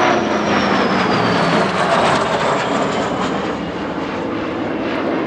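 MiG-15 jet fighter flying past overhead: a steady jet roar with a high whine that falls in pitch over the first second or two as it goes by.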